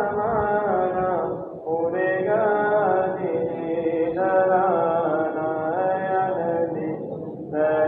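A voice chanting in long, held melodic phrases, with two short breaks, one about a second and a half in and another near the end.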